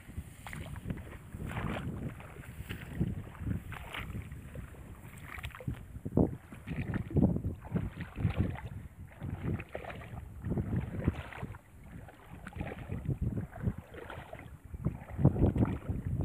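Repeated sloshing and squelching footsteps through a waterlogged rice paddy, roughly once a second, with wind rumbling on the microphone.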